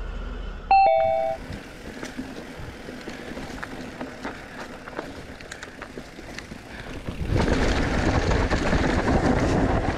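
Ibis Mojo HD3 mountain bike descending a dry dirt trail: tyres rolling and crunching over the dirt with scattered clicks and rattles from the bike. The noise grows louder about seven seconds in as speed picks up, with wind on the microphone. A short bright chime sounds about a second in.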